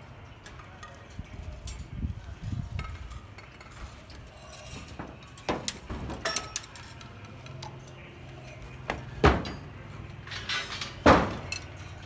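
Scattered sharp metallic clinks and knocks of steel rebar and hand tools being handled on a rebar cage, the two loudest strikes in the last third.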